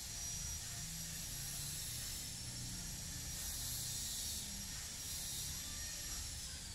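Steady hiss with thin, high-pitched whining tones over a faint low rumble, the hiss growing brighter midway; near the end one of the high tones begins to slide down.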